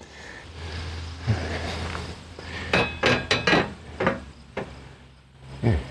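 Metal clanks and knocks as a tubular steel handle frame is handled and set onto a cement mixer's steel base: a cluster of sharp hits about three seconds in, then a couple more.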